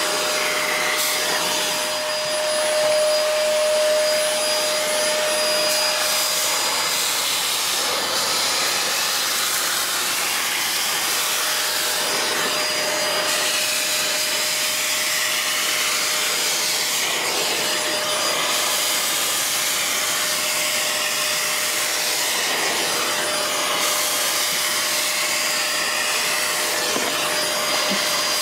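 Vacuum cleaner running steadily with a constant whine, its hose nozzle drawn along model railway track sucking up loose ballast.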